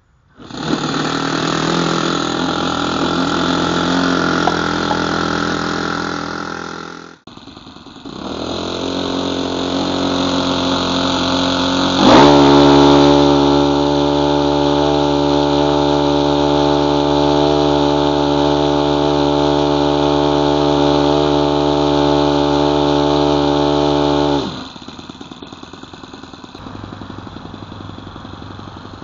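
Saito FA-62 four-stroke glow engine on a model plane running close by, with a brief break about seven seconds in. About twelve seconds in it is revved sharply up to a steady high speed and held there. Near the end it is heard quieter and farther off.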